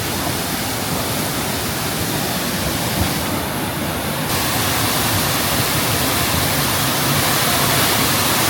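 Waterfall pouring: a loud, steady rush of falling water that swells slightly about four seconds in.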